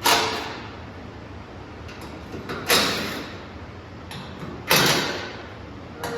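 Hammer striking a steel letter stamp into a thick steel skid plate: three heavy blows about two seconds apart, each ringing off, each led by a light tap.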